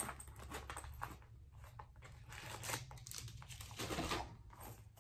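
Small belongings being handled and sorted by hand: irregular rustling and crinkling with light clicks and taps.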